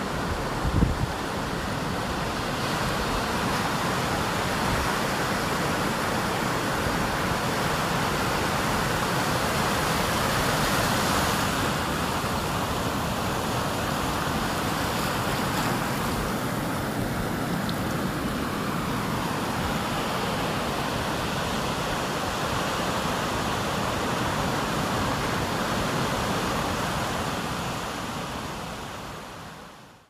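Ocean surf washing steadily on the beach, fading out near the end.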